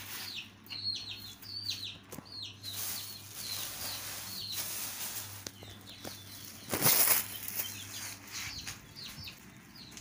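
Budgies chirping in an aviary with short, quick falling calls, many in the first three seconds and fewer after. About seven seconds in there is a loud, brief rustling flurry, with wing flapping among it.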